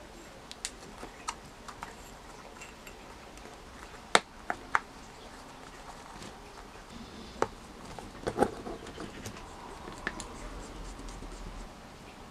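Handling noise as a rubber RC crawler tire is worked onto a metal beadlock wheel by hand: scattered light clicks and taps, the sharpest about four seconds in and a cluster around eight seconds, with soft rubbing between them.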